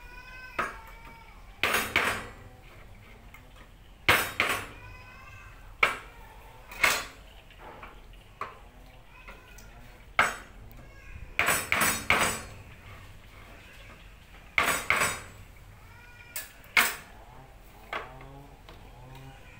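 A knife struck against the tops of tin cans of milk to punch them open: about a dozen sharp metallic knocks at irregular intervals, some in quick runs of two or three.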